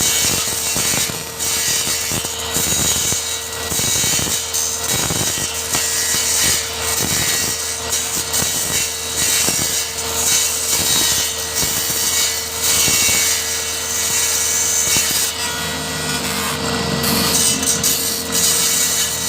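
Circular saw running and cutting high-pressure laminate (HPL) sheet: a steady motor tone under continuous cutting noise.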